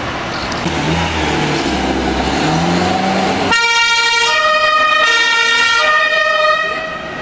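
A police car's engine accelerates, then about three and a half seconds in a two-tone siren starts, switching between a lower and a higher note about every three-quarters of a second.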